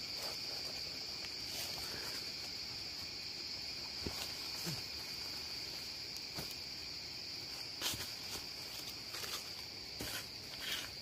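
A steady high-pitched drone of forest insects, with scattered crunches and rustles of dry leaf litter and twigs under a climber's boots, the sharpest about two-thirds of the way through and near the end.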